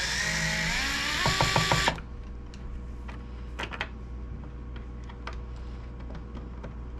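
Small power screwdriver running as it backs out a screw, its motor whine changing pitch in steps with a rapid clicking, then stopping about two seconds in. A few light clicks follow.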